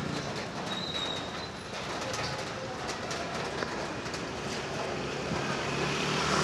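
Steady outdoor background noise, with a short high chirp about a second in.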